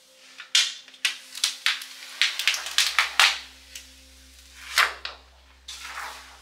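Clear protective plastic film being peeled off a laptop lid, crackling in a quick run of sharp snaps, then rustling in two softer swells as the sheet comes free and is handled.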